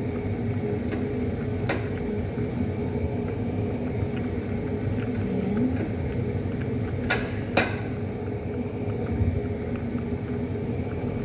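Steady mechanical hum of kitchen machinery, broken by a few sharp clicks, two of them close together about seven seconds in.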